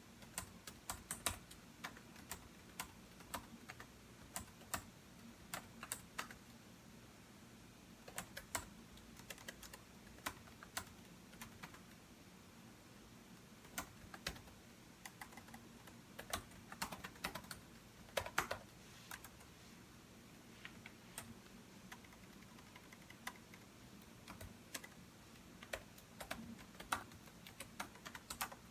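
Computer keyboard typing in irregular bursts of quick key clicks, with short pauses between runs, over a faint low hum.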